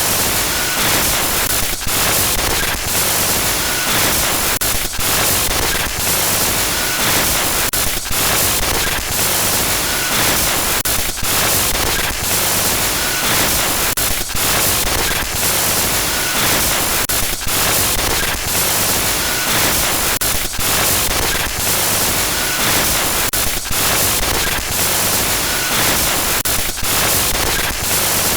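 Glitch noise effect: loud, harsh static-like noise across the whole range, stuttering with frequent brief dropouts at uneven intervals.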